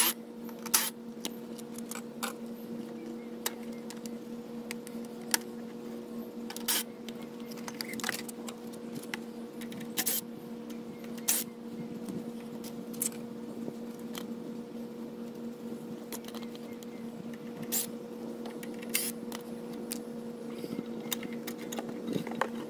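Scattered clicks and clacks of a cordless drill-driver and plastic engine parts being handled as the fuel tank, top cover and carburetor come off a Briggs & Stratton push-mower engine, over a steady low hum.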